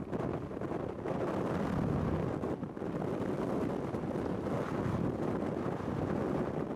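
Antonov An-12's four Ivchenko AI-20 turboprop engines running, almost buried under strong wind rumbling and buffeting on the microphone.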